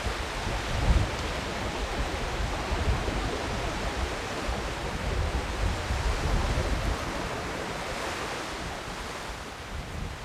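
Sea waves washing onto a beach, with wind buffeting the microphone in gusts.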